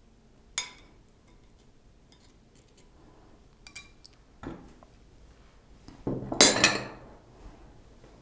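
Kitchen utensils clinking and scraping against dishes: a sharp clink, a few light taps and a knock, then a louder, longer clatter near the end.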